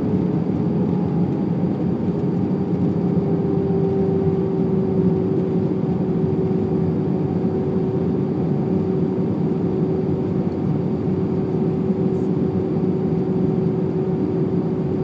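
Airliner cabin noise in cruise flight: the steady rush of jet engines and airflow through the fuselage, with a constant hum.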